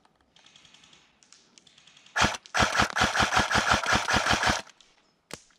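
Airsoft gun firing: a single shot about two seconds in, then a rapid full-auto burst of about fifteen shots lasting about two seconds, and one lone click near the end.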